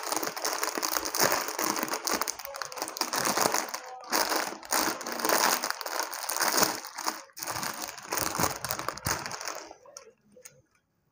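Metallised plastic Kurkure snack packet crinkling and crackling as it is handled and torn open by hand, stopping about ten seconds in.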